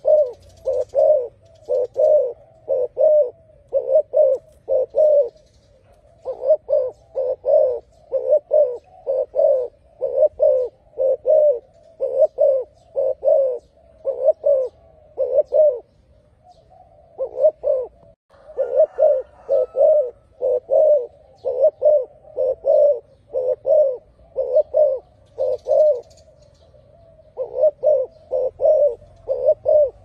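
Spotted dove cooing: phrases of short low coos repeated over and over, each phrase a few notes long, with brief pauses between phrases.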